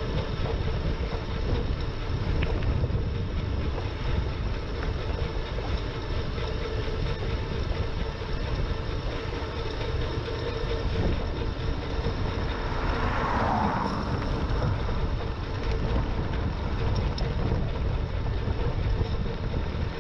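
Wind buffeting an action camera's microphone during a road ride on an e-bike, a steady rumble with a faint steady hum underneath. About two-thirds of the way through, a brief higher swell rises over it.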